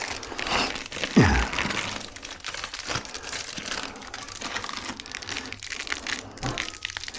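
Steady crinkling and crackling handling noise, with one loud thud about a second in.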